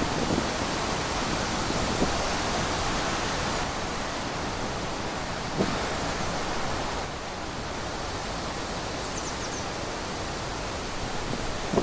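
Wind rushing steadily through trees, easing a little about seven seconds in. A faint high chirp comes near the end.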